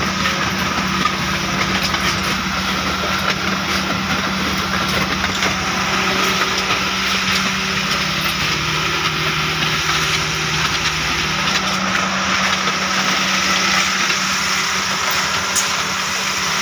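Steady drone of machinery running at a concrete paver works: an engine or motor with a constant low hum under an even hiss.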